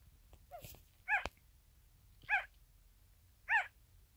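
Newborn corgi puppy crying: short, high, mewing squeaks that rise and fall in pitch, about one every second and a bit, four in all, the first one faint.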